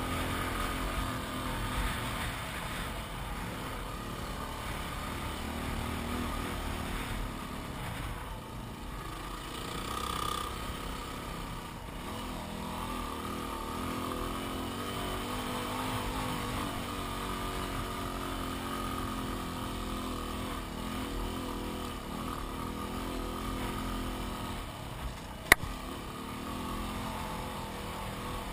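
Yamaha WR250R's single-cylinder four-stroke engine running steadily as the motorcycle rides along a sand track. Near the end there is one sharp click.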